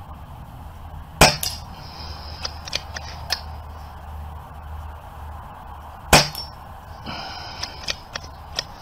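Two shots from a Daystate Airwolf pre-charged pneumatic air rifle, about five seconds apart, with several lighter clicks and ticks between and after them.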